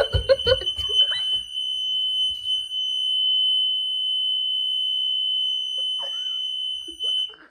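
Fire alarm sounding one loud, steady high-pitched tone that cuts off suddenly near the end; the alarm is going off as a test.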